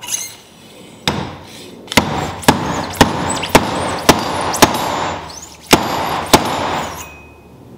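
A 49 mm fork seal driver is slammed down the fork tube, knocking about nine times at roughly two a second with a short pause in the middle. It is driving the new oil seal down into the fork slider.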